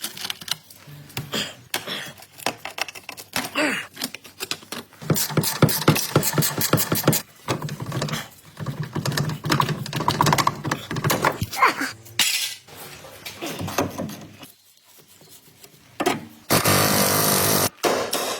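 Metal tools working on rusted front axle and suspension parts: repeated clanks and knocks, including a fast run of knocks, and a dense steady stretch of tool noise near the end.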